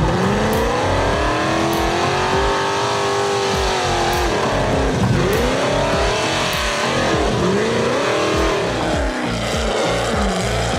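Rock bouncer buggy's engine revving hard on a steep dirt hill climb, with its tyres spinning in loose dirt. The pitch climbs at the start and holds high, drops briefly about halfway, then rises and falls in several quick rev surges toward the end.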